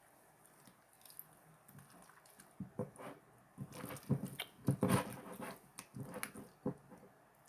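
Slime being squeezed and poked by hand: a run of wet squelching clicks and pops, quiet at first, busiest and loudest in the middle, then thinning out near the end.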